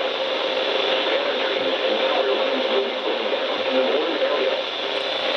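Steady radio static from a weather radio receiver, a hiss cut off above the treble, with a faint steady hum underneath.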